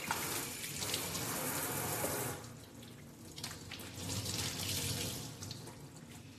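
Kitchen pull-down faucet running into the sink as dishes are rinsed, stopping about two seconds in. A shorter, weaker spell of water noise follows a little past the middle.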